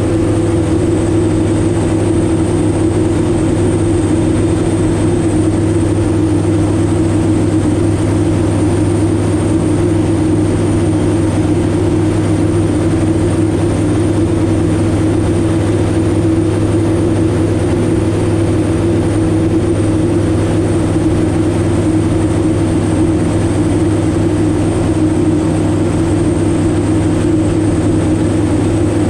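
Kitfox Model 7 Supersport light aircraft's engine and propeller droning in flight, holding a steady pitch and level throughout with no rise or fall.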